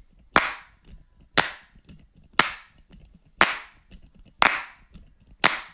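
Six sharp clap-like hits, evenly spaced about one a second, each fading out over about half a second.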